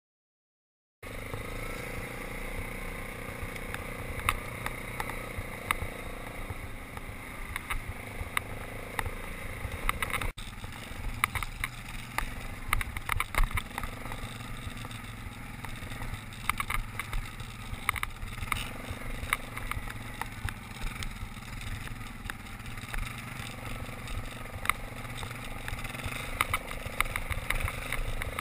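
Yamaha Grizzly 660 ATV's single-cylinder engine running as it climbs a rough grassy track, heard from on board, with frequent sharp knocks and rattles over the bumps. It starts suddenly about a second in.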